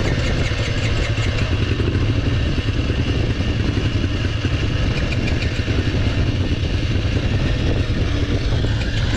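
Small dirt bike engine running steadily with a clattery tone while the bike stands still.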